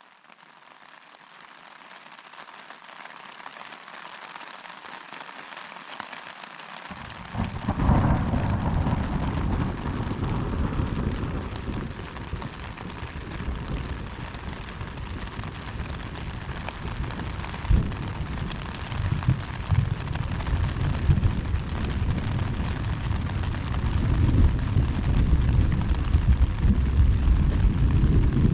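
Steady rain with thunder. A deep rumble of thunder comes in about a quarter of the way through and keeps rolling, swelling and easing, under the hiss of the rain.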